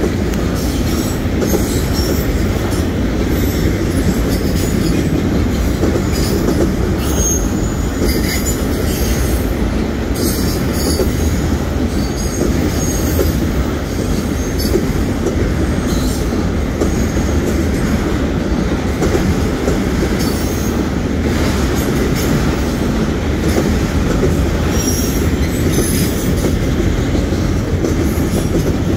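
Freight train of autorack cars rolling past: a steady, loud rumble of steel wheels on the rails, with short high-pitched wheel squeals now and then.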